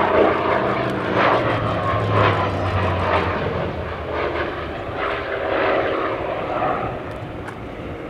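Hawker Fury ISS's original Bristol Centaurus 18-cylinder sleeve-valve radial engine and propeller in flight, a continuous rasping engine note. The note slides down in pitch during the first few seconds and eases off in level near the end.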